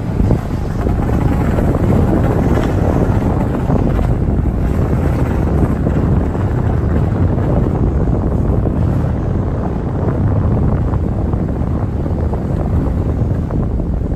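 Skateboard wheels rolling over rough concrete, a steady low rumble, with wind on the microphone.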